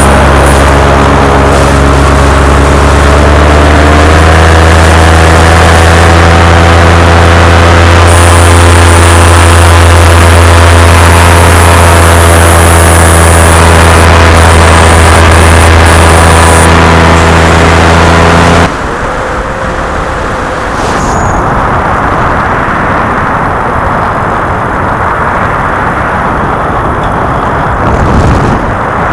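Paramotor engine and propeller running steadily in flight, its pitch rising about four seconds in as the throttle opens. About two-thirds of the way through the engine note cuts off abruptly, leaving only wind noise.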